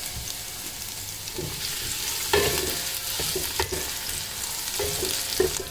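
Garlic and chopped red chilli sizzling in hot oil in a pan while being stirred, with a few sharp knocks of the spoon against the pan.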